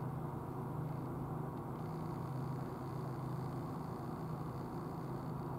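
Steady low hum with a constant hiss of background noise, unchanging throughout.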